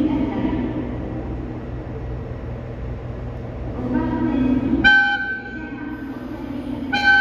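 KiHa 283 series diesel train rumbling along, then sounding its horn twice, two short blasts about two seconds apart near the end.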